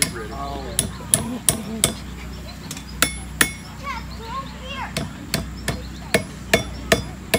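Blacksmith's hand hammer striking red-hot iron on an anvil. About a dozen sharp blows come in short runs of two to four, roughly three a second, each with a brief metallic ring.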